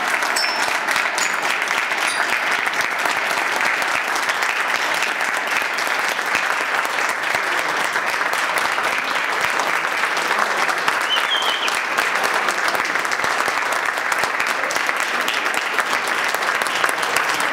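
Audience applauding steadily, many hands clapping at once at the close of a live performance.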